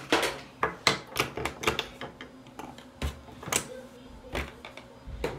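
Plastic mascara tubes and other makeup items being picked up and set down on a hard countertop and put into a drawer: a run of irregular sharp clicks and clacks.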